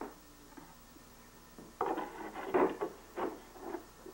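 A strip-built wooden panel being handled and moved on a bench: a quiet start, then a run of wooden knocks and rubbing from a little under two seconds in.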